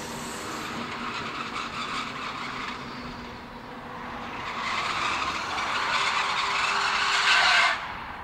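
Low steady hum of a diesel shunting locomotive, then a loud metallic screech of steel railway wheels against rails that builds up from about halfway and cuts off abruptly near the end.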